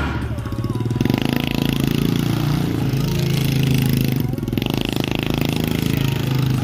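Small quad ATV's engine running under throttle while the ATV drifts in circles on loose dirt, with a hiss of tyres sliding and spraying dirt.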